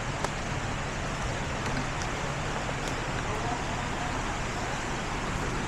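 A truck driving slowly on a rough dirt 4x4 trail: steady engine and tyre noise, with a few faint clicks.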